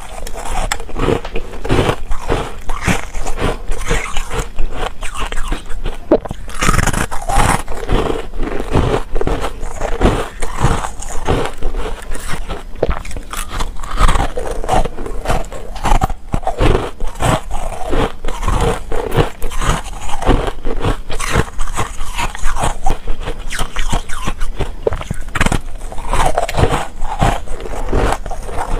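A person biting and chewing layered ice bars: continuous crunching and crackling of ice between the teeth, with sharp bites coming close together all through.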